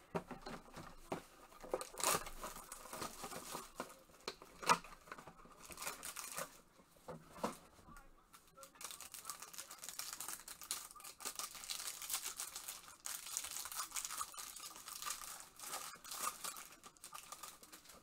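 Wrapper of a Panini Absolute Football trading-card pack being torn open and crinkled. Sharp crackling rustles with a few louder snaps come in the first half, then steadier crinkling through most of the second half.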